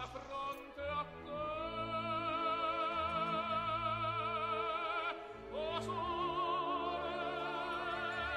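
Operatic singing in background music: a voice holding long notes with wide vibrato, breaking briefly about five seconds in before another long held phrase.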